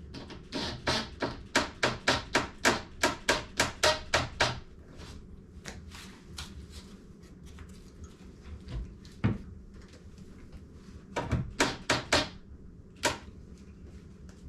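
Wood screw being driven through a dishwasher's side mounting bracket into cabinet wood: a quick even run of sharp clicks, about four or five a second for some four seconds, then a few scattered clicks and a short cluster of them near the end.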